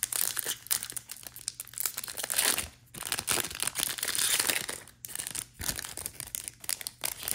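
Foil trading-card pack wrapper being crinkled and torn open, a dense run of crackling and tearing with a longer loud stretch about halfway through.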